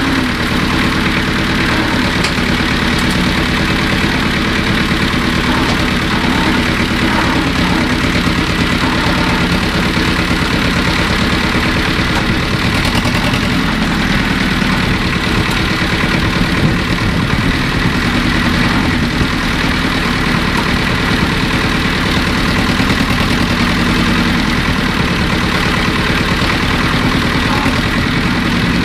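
Diesel engine of a Hardy compact tractor running steadily while its front loader digs into a ditch.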